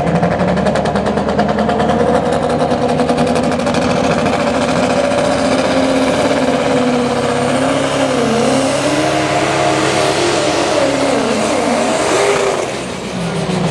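Diesel pickup engine, a Ford Super Duty's 6.0-litre Power Stroke V8, running flat out under full load as it drags a weight-transfer sled. The pitch holds steady, then sags and wavers as the engine bogs under the load, and the sound drops off near the end as the truck comes off the throttle.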